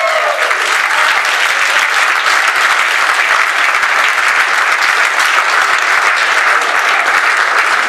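Audience applause, dense and steady.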